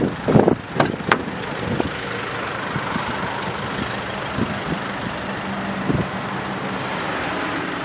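A car's door handle and door being opened: a few clicks and knocks in the first second or so. This is followed by a steady hiss with a faint low hum underneath.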